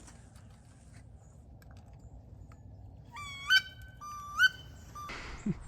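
Two loud squealing calls of a wood duck, each about half a second long and rising in pitch at the end, a second apart. A rustle follows near the end.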